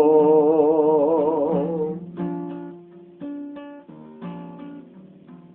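Song: a male voice holds the last word of a line with vibrato, fading out about two seconds in. Then an acoustic guitar plays a short run of plucked notes and strums on its own.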